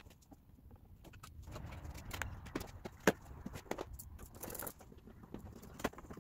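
Hands working a car's plastic airbox and intake loose: scattered clicks, clunks and knocks of plastic parts and clips being handled, with the sharpest knock about three seconds in.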